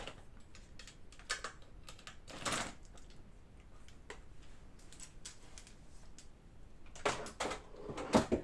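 Scattered clicks, knocks and a scrape of a rifle scope and its mount being handled and fitted onto an airsoft rifle, with a cluster of louder knocks near the end.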